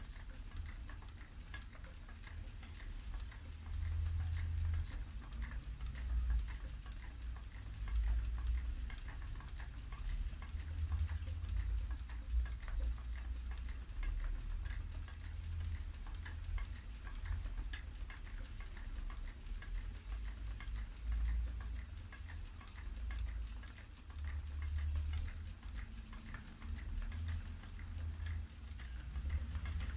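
Treadle spinning wheel running as fibre is spun: a continuous patter of light clicks and ticks from the wheel's moving parts over a low, uneven rumble.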